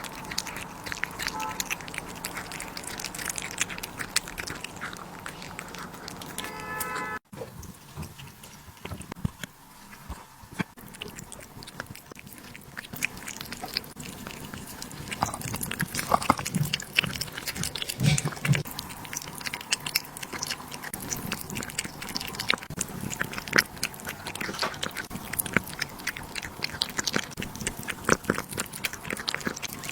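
Many small crunching clicks from a pet chewing and biting food. The sound breaks off for an instant about seven seconds in, then goes on.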